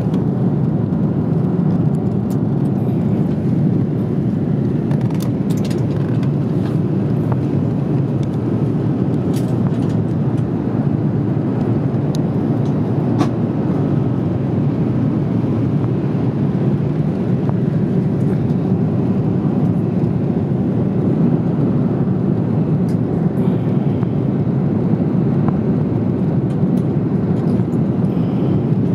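Airbus A330 cabin noise during the climb after takeoff: a steady low rumble of the jet engines and rushing air, heard from a window seat inside the passenger cabin.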